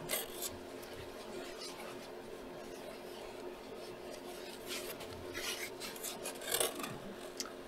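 Scattered rustling and scraping from the box's banner and its packaging being handled and unwrapped, busiest about five to seven seconds in, with a small click near the end, over a faint steady hum.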